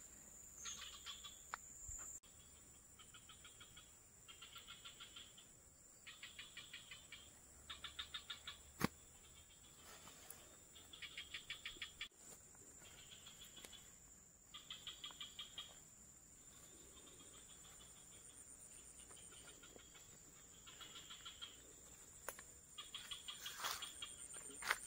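Faint insects calling in short, rapid pulsed trills that repeat about every second and a half, over a steady high-pitched whine. A single sharp click comes about nine seconds in.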